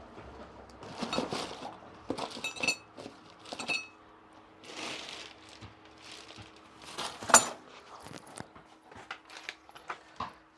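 Small metal objects clinking and rattling as they are handled and rummaged through, a few ringing briefly, with a sharper knock about seven seconds in.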